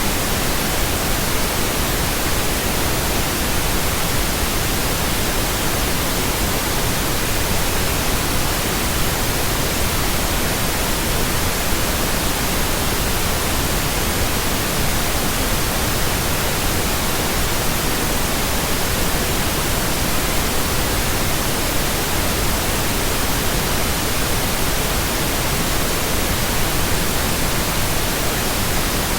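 Steady generated pink noise: an even, unchanging hiss spread over all pitches, with no tones or events in it.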